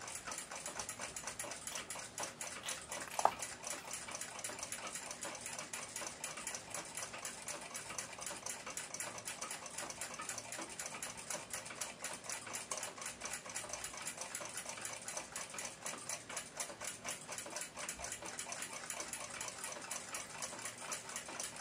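Swiss pocket watch movement ticking in a rapid, even beat, its balance swinging freely now that the hairspring no longer rubs on the balance cock. A single sharper click about three seconds in.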